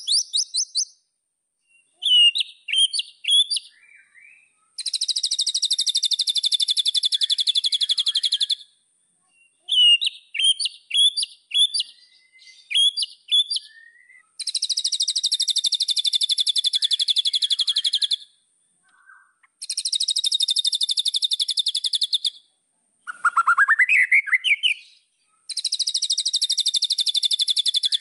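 White-rumped shama song: clusters of short, sharp whistled notes alternating with long, fast trills that run for about three to four seconds each, plus a rising run of notes near the end.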